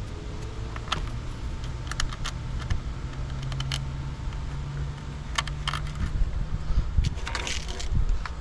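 Scattered light clicks and clinks of small metal hardware, the washers and nuts for a taillight's mounting bolts, being handled, with a brief rustle near the end and a faint low hum in the middle.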